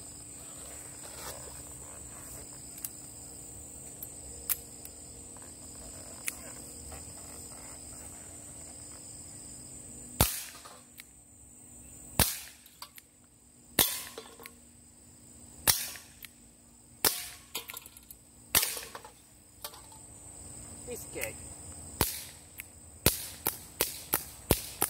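CO2-powered BB revolver firing: six sharp pops spaced about a second and a half to two seconds apart starting near the middle, then a quicker run of pops near the end. Crickets chirp steadily in the background.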